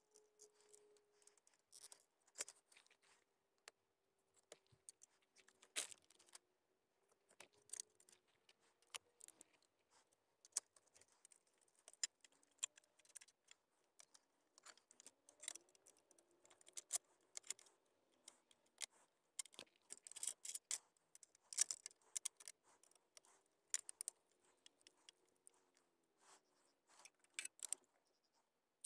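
Irregular quick clicks, taps and metallic clinks of a screwdriver and the metal parts of a RAM laptop-tray mount being handled and assembled, at a sped-up pace.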